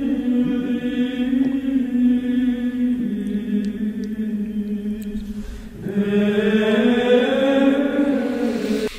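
Background music of sung chant: voices holding long, drawn-out notes that shift pitch every few seconds.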